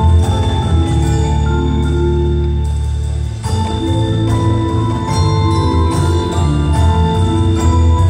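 Indoor percussion ensemble playing a slow passage: mallet keyboards (marimbas and vibraphones) ring held, bell-like chords over strong low bass notes. The harmony changes to a new chord about three and a half seconds in.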